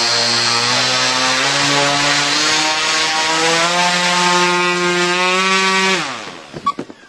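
Turnigy CA 120-70 electric outrunner motor spinning a 30x10 Xoar propeller at high power: a loud propeller drone with a high electric whine over it, the pitch stepping up as the throttle is pushed toward full. About six seconds in the throttle is cut and the propeller winds down within a second, followed by a few clicks. At full throttle the owner judges that the speed controller is hitting its current limit.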